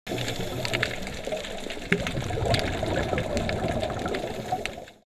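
Water sound: a steady bubbling rush with scattered sharp clicks, fading out and stopping near the end.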